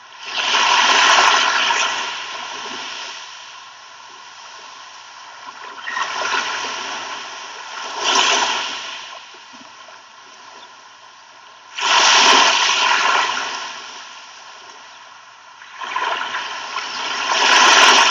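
Sea waves breaking and washing up a beach, each wave swelling to a rush and then fading, coming in repeated surges every few seconds.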